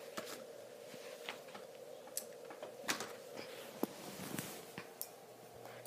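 Scattered light clicks and rustles at irregular times over a faint steady hum: handling noise from a camera being moved about.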